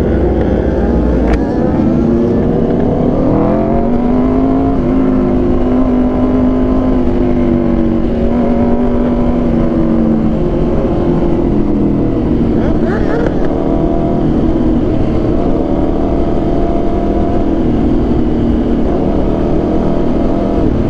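Aprilia RSV4 1100 Factory's V4 engine through an SC Project exhaust, riding under way: the engine note climbs as the bike accelerates over the first few seconds, holds steady, dips about twelve seconds in and climbs again. Wind rushes over the microphone throughout.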